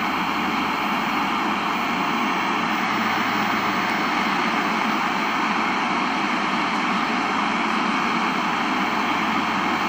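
Steady hiss of static from the speaker of a 1976 RCA XL100 colour portable TV (CTC74 chassis), just powered up after years unused.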